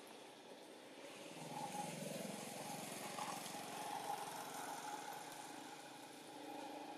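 Faint hum of a motor vehicle's engine, swelling about a second in and easing off toward the end, like a vehicle passing.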